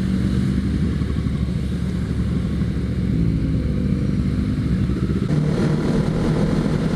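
Motorcycle engine running steadily while riding at speed, with wind noise on the microphone; about five seconds in the engine note drops a little and holds.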